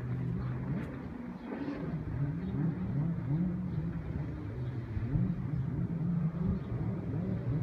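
Jet ski engines running, their pitch rising and falling again and again as the riders open and close the throttle through tight turns. More than one engine is heard at once.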